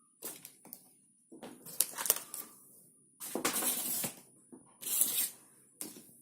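Packaging being handled and torn during an unboxing: several bursts of rustling and tearing, the longest a near one-second tear about three seconds in.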